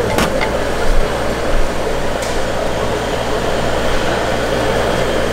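Steady background hum and hiss of a street-food stall, with a light click at the start and another about two seconds in.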